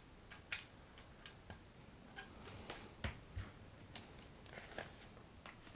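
Faint, irregular clicks and taps of plastic LEGO bricks being pressed onto a model and handled.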